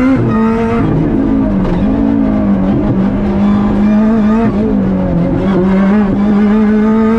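Rally car engine heard from inside the cabin, running hard at high, fairly steady revs, with its pitch dipping briefly about three times as the throttle comes off between bursts.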